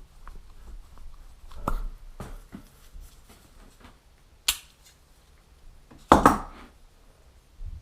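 A few scattered knocks and clicks of tools and parts being handled during car repair work, the loudest a quick double knock about six seconds in.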